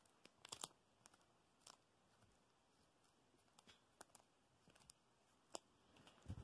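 F1 Savannah cat chewing a freeze-dried rabbit ear: faint, scattered crunches of teeth on the dry ear, a few close together about half a second in, then single crunches every second or so.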